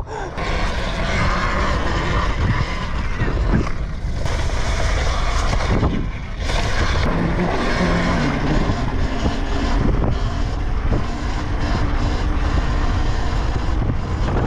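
Wind buffeting the microphone of a rider moving at speed on a Talaria Sting electric dirt bike, a loud steady rush that dips briefly twice. A faint whine from the bike's electric motor shifts in pitch under it in the second half.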